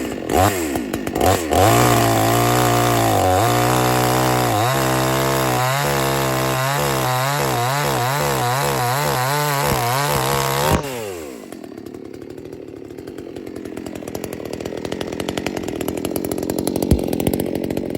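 Dereal 62cc two-stroke gasoline chainsaw revved in a few quick blips, then held at high speed for about nine seconds. About eleven seconds in, the throttle is released and the engine drops back to a lower, quieter idle.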